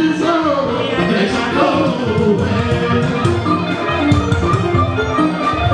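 Live fuji band music played loud: a singing voice gliding through a phrase in the first couple of seconds, over steady dense drumming and held instrument tones.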